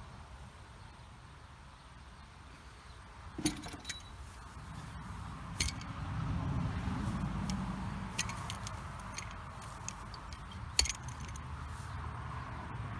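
Scattered sharp metallic clinks and clanks of a jack and its handle as the tractor is lowered off it, the loudest near the end, over a low background rumble.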